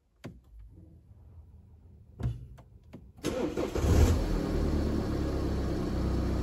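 A few light clicks, then a BMW F10's engine starts about three seconds in and settles into a steady idle. The car is starting on a newly programmed key after a CAS4 key-programming repair.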